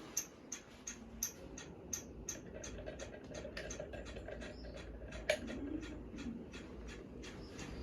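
Hunter Altadore ceiling fan running with a low steady hum and a rapid, regular ticking of about three to four sharp clicks a second.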